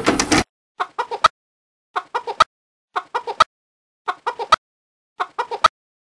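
Chicken clucking sound effect: a quick run of four clucks, repeated identically about once a second with dead silence between.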